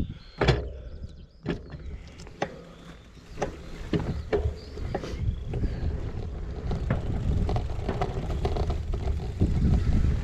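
Gravel bike being ridden, with wind buffeting the action camera's microphone as a heavy low rumble. The frame and parts rattle, giving sharp clicks and knocks about once or twice a second. The rumble grows louder near the end.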